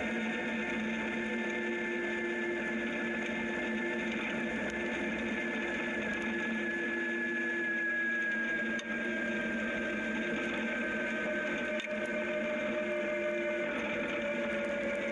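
Zero DSR electric motorcycle riding on a gravel road: the electric motor and drive give a steady whine that slowly falls in pitch, over the hiss of tyres on gravel.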